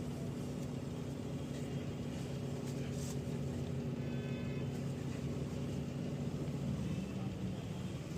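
Mahindra XUV300 engine idling with a steady low hum while the steering is turned; the freshly repaired and greased steering column makes no noise of its own. A faint higher tone sounds briefly about four seconds in.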